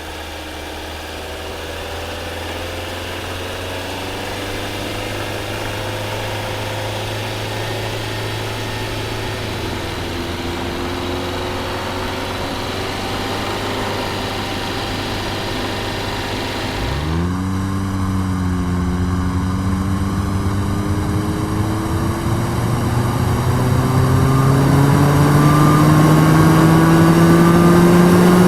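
2005 Honda Civic's four-cylinder engine pulling under acceleration, its pitch climbing slowly. About two-thirds of the way in the sound changes abruptly, with a quick jump in engine pitch, then the engine note rises steadily and gets louder.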